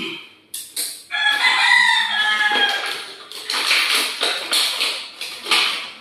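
A rooster crows once, a long call falling in pitch about a second in. Then plastic crinkling as the door knob's clear plastic pack is handled and opened.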